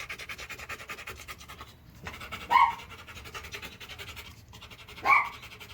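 A dog panting fast and steadily, tired out after exercise, with two short high whimpers, one about halfway through and one near the end.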